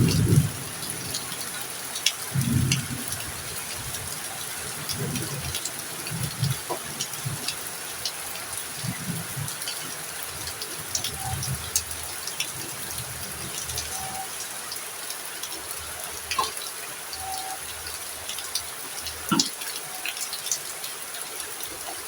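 Heavy rain falling steadily, with scattered drops ticking and a few low thumps.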